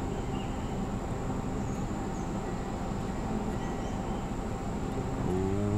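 Steady, even hum of a car idling, heard from inside the cabin.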